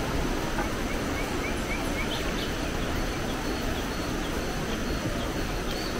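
Outdoor rainforest ambience: a steady background hiss with small birds chirping, a quick run of short chirps about a second in and scattered higher chirps after it.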